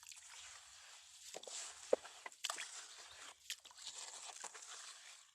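Faint rustling and scraping of sand, with a few scattered light clicks and taps of small plastic toys being handled.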